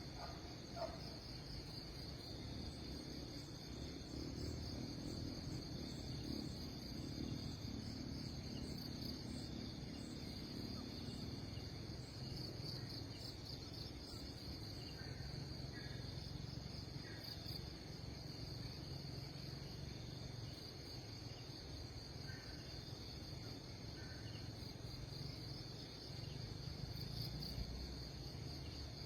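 Steady, high-pitched insect chorus that does not let up, with a few faint short chirps now and then and a low rumble underneath.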